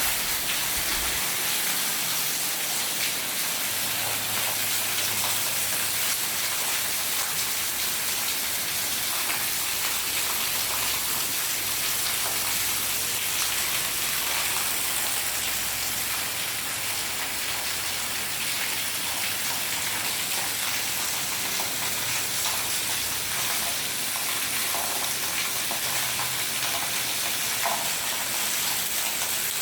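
Heavy rain shower pouring down steadily, a dense even hiss of rain hitting the ground.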